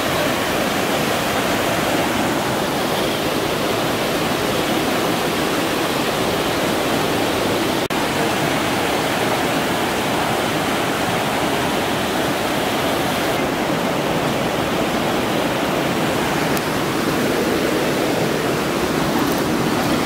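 Fast mountain stream rushing and splashing over fallen logs and rocks: a steady rush of whitewater.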